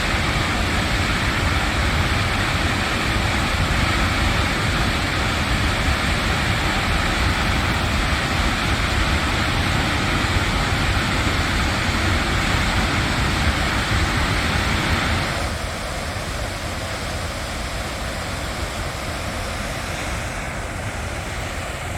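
Steady rush of water falling over a small waterfall, an even hiss that drops somewhat in level about fifteen seconds in.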